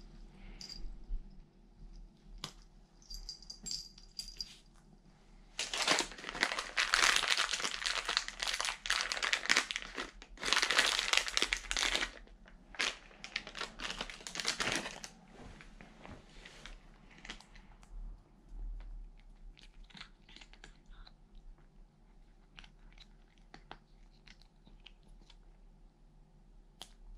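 Plastic cat-treat pouch crinkling in the hands in two long loud spells, then quieter rustling and small clicks for the rest of the time.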